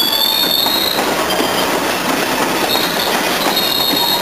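A freight train of loaded open hopper cars rolling past with a steady rumble and clatter. The wheels squeal high and thin for about the first second, and again from about three seconds in.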